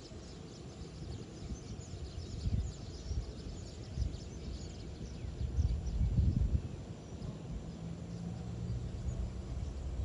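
Alsthom diesel-electric locomotive and its passenger coaches running over a railway turnout: a low rumble with irregular wheel knocks, loudest about six seconds in, and a steady engine hum later on. Faint bird chirps above it.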